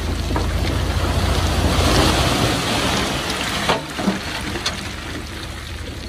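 Komatsu D20P bulldozer at work: a steady noisy rumble, a little quieter in the second half, with a few short knocks about four seconds in.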